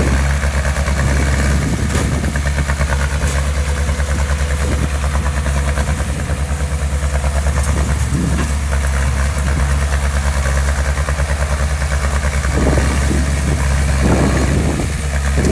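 Heavy construction machine's diesel engine running steadily at low revs with an even, rhythmic drone. There are a couple of brief swells near the end.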